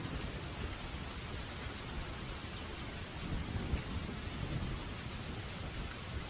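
Waterfall: a steady rush of falling water over a deep, churning rumble that swells slightly about three and a half seconds in.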